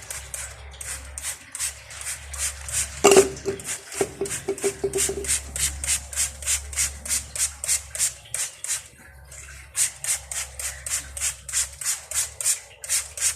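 Disc brake parts being scrubbed clean by hand, in brisk back-and-forth strokes about three a second. About three seconds in there is a single metallic clank that rings briefly, and the strokes pause for a moment around nine seconds in.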